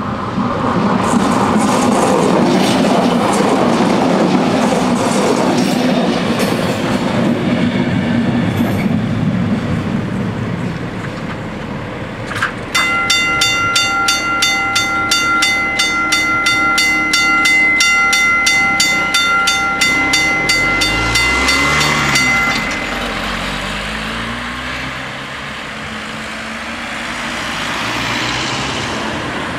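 A regional train runs past over the level crossing for about the first ten seconds, a loud rumble with wheel clatter. About halfway through, the crossing bells start ringing rapidly and evenly as the barriers lift, and they stop about ten seconds later. A car then passes over the reopened crossing.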